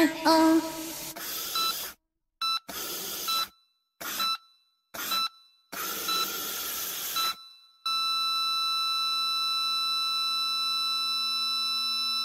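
Sped-up nightcore pop song: a few high sung notes, then the track stutters in and out in short chopped chunks with silent gaps. About eight seconds in it settles on one long held electronic tone that fades out at the end.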